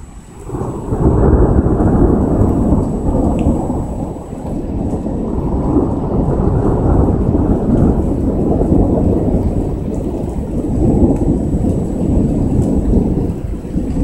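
Long rolling thunder: the rumble swells from about half a second in, is loud within a second, and rolls on in waves for over ten seconds before easing near the end.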